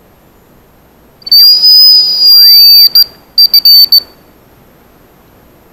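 Hazel grouse decoy whistle blown close to the microphone, imitating the bird's song: one long, thin, high whistled note, then a quick run of about four short notes. Very loud.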